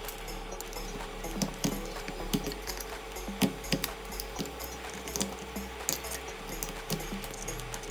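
Irregular light clicks and taps of small repair tools against phone parts, over a steady faint hum.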